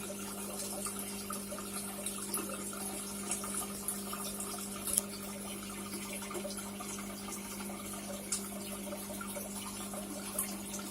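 Water trickling and splashing over a steady low hum, like a pump running in an aquarium setup, with small irregular drips and ticks and one sharper tick about five seconds in.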